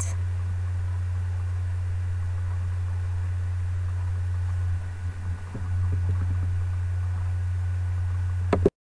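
A steady low hum, wavering briefly about five seconds in. Near the end it ends with a click and a sudden cut to silence.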